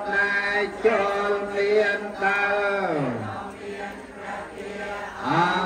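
Buddhist monks' chant in Pali, on long sustained tones whose pitch slides steeply down about halfway through and rises again near the end.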